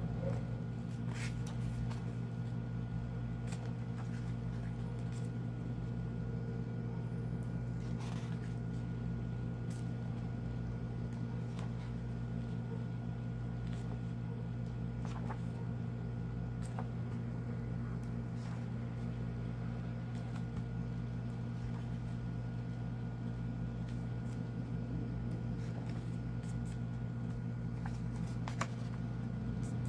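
Steady low mechanical hum, with a few soft rustles as the glossy pages of a softcover book are turned by hand. One page-turn is a little sharper near the end.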